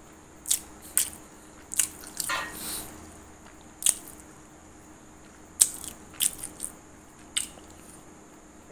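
A person chewing food close to the microphone: a string of short, sharp mouth clicks and smacks, about ten in all, unevenly spaced.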